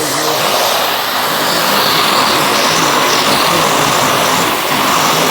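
Vacuum cleaner running, a loud steady rush of air and motor whine.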